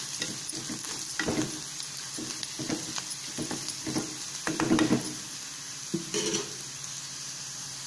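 Chopped onions and curry leaves sizzling in hot oil in a kadai while a spatula stirs and scrapes through them, mixing in turmeric: a steady frying hiss with scattered scraping strokes.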